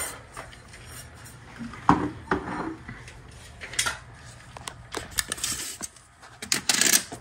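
Scattered metallic clinks and knocks from tools and parts being handled by hand, with a quick cluster of louder clatters near the end.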